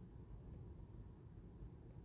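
Near silence: room tone with a faint low hum during a pause in speech.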